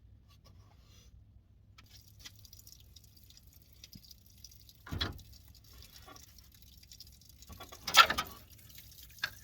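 A few separate knocks and clatters of metal tools and parts during engine work, the loudest about eight seconds in.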